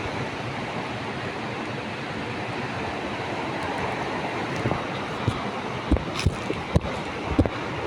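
Steady rushing of river water, with a handful of short low thumps in the second half.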